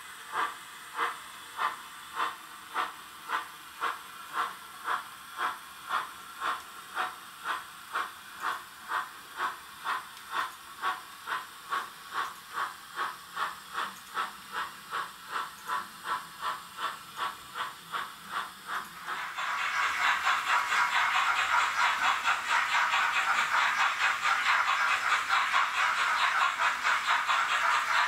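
Roco HO-scale steam locomotive's digital sound decoder playing steady steam exhaust chuffs, a little under two a second and gradually quickening. About two-thirds of the way in, a louder continuous hiss of steam takes over.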